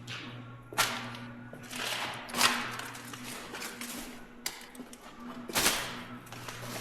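Compressed-air gun firing several short hissing bursts, the longest about two seconds in and another strong one near the end, over a steady low machine hum.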